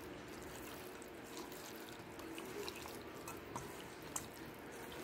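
A hand squishing and turning raw chicken wings in a wet marinade in a stainless steel bowl: faint wet squelches and small scattered clicks over a steady low hiss.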